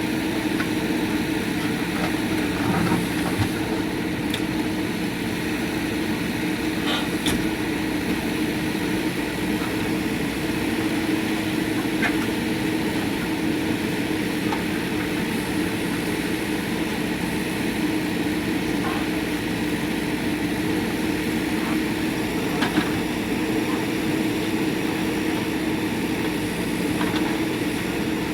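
JCB 3DX backhoe loader's diesel engine running steadily, with a few scattered sharp knocks.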